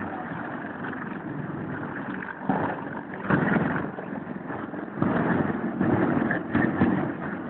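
Steady engine noise that swells louder several times, briefly about two and a half seconds in, again around three and a half seconds, and for about two seconds near the end.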